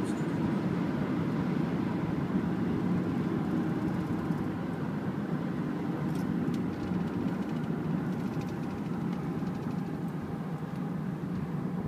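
In-cabin drone of a 2007 Toyota Camry 2.0's engine together with tyre and wind noise at highway speed, steady and easing slightly as the car slows from highway speed.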